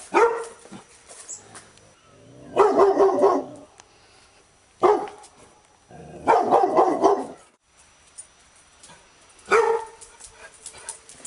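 A Labrador retriever barking: three short, sharp barks about every four and a half seconds, with a longer, drawn-out bark of about a second between each pair.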